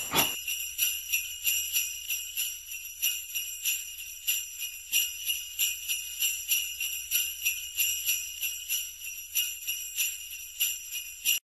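Sleigh bells jingling in a steady rhythm, about three shakes a second, cutting off abruptly near the end.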